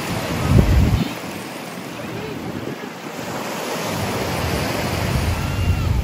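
Small waves washing up on a sandy beach, with wind buffeting the microphone in gusts, heaviest about half a second in and again near the end.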